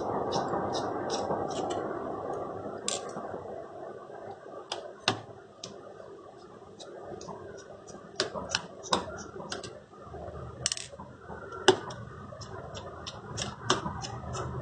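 Small screwdriver working out the tiny screws from a smartphone's back panel: many short, irregular sharp clicks and ticks of the tool and screws over light handling rustle.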